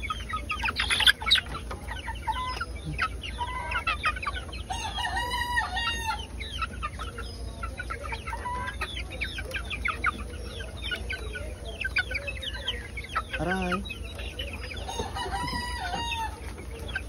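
Several chickens clucking and chattering without pause, with a longer drawn-out call about five seconds in and another near the end.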